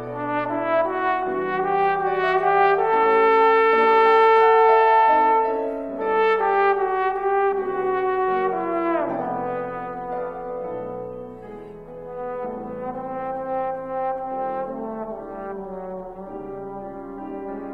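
Trombone playing a slow, sustained melody with piano accompaniment. About nine seconds in there is a downward slide glissando.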